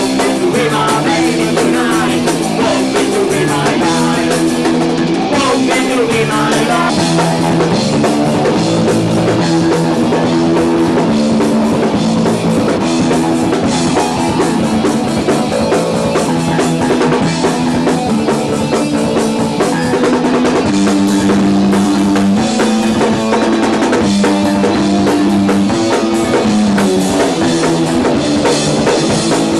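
Rock band playing live, the drum kit keeping a steady beat under bass and guitar lines.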